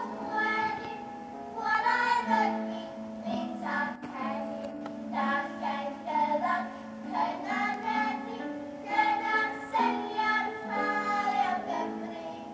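A cerdd dant party of young schoolgirls sings in Welsh in harmony, in sustained phrases, to harp accompaniment, heard through a television's speaker.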